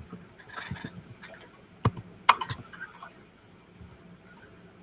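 Plastic water bottle being handled and opened: a series of sharp clicks and crackles, loudest about two seconds in, then quieter handling as it is raised to drink.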